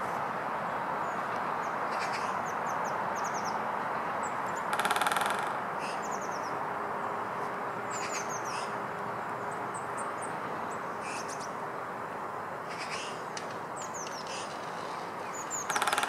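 Great spotted woodpecker drumming on a dead tree snag: a short, very rapid roll of knocks about five seconds in and another near the end, with a long pause between. Small birds chirp briefly now and then over steady background noise.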